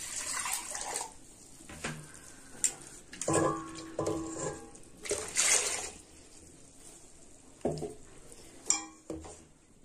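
Water poured from a steel vessel into a steel pot of ground tomato paste, twice, with ringing clinks of the steel vessels knocking together in between and a couple of sharp clicks near the end.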